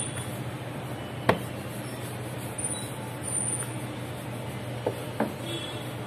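Wooden rolling pin working samosa dough on a floured stone slab: one sharp knock about a second in and two lighter knocks near the end, over a steady low hum.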